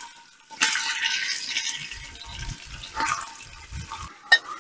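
Chicken pieces frying in hot oil in an Afghan kazan (a pressure-cooker-style cauldron): a sizzle that flares up about half a second in and slowly dies down, with a couple of short knocks later on.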